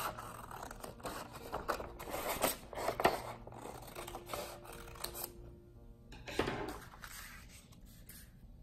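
Scissors cutting through a sheet of paper along its fold: a quick run of snips for about five seconds, then one last cut about six and a half seconds in.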